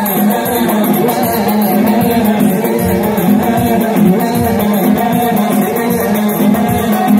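Loud dance music played over speakers, with singing over a fast, steady beat of shaken or struck percussion.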